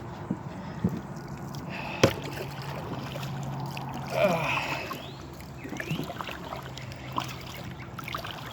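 Kayak moving on a lake, with water noise around the hull and a steady low hum from about two seconds in. A single sharp knock comes about two seconds in, and a short call-like sound just after four seconds.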